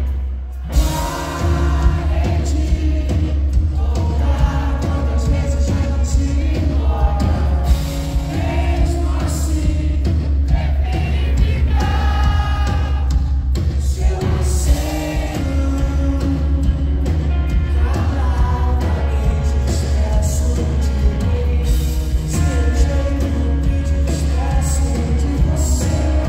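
Rock band playing live, with electric guitar, bass and a male lead vocalist singing into the microphone, as heard on a phone in the audience of a concert hall. The band drops out for a moment right at the start, then comes back in at full level.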